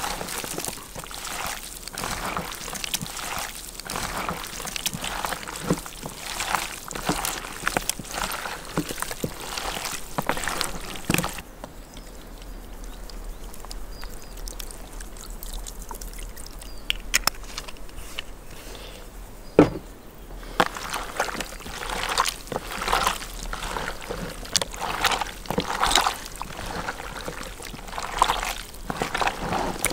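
Raw chunks of heart being kneaded by hand in a plastic tub, wet squelching and slapping in quick irregular bursts. About eleven seconds in it goes quieter for a while as oil is poured in, then the squelchy mixing starts again.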